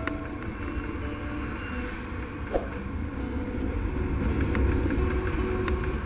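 Yamaha FZS motorcycle on the move, its engine and wind making a steady low rumble, with a faint tapping from the front disc brake now and then.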